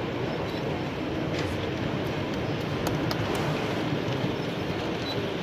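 Steady crowd hubbub of indoor chatter, with a few faint clicks.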